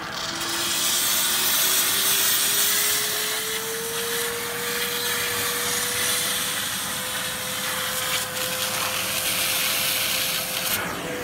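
Blue Evolution S+ steam-vacuum cleaner running with its tile nozzle pressed to wall tiles: a loud, steady rush of steam and suction air. A motor whine climbs in pitch over the first few seconds, then holds steady. The sound stops abruptly at the end.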